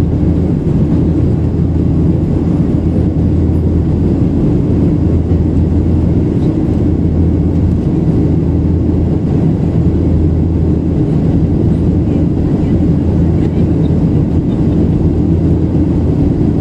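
Steady low drone inside the cabin of a Boeing 737-800, from its CFM56-7B jet engines and the rush of air during the climb after take-off.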